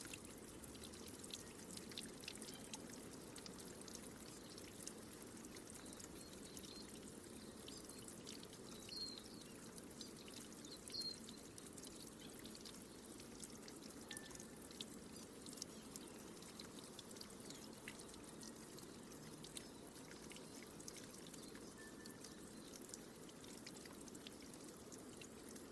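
Faint, steady trickling water with many small drips and splashes throughout. A few brief high chirps come through, the clearest about nine and eleven seconds in.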